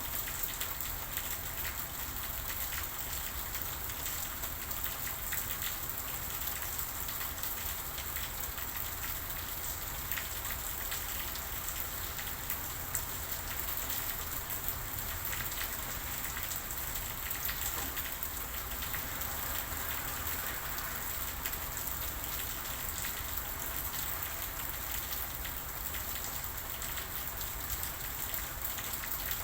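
Steady rain falling, a constant hiss of many small drops pattering on a surface.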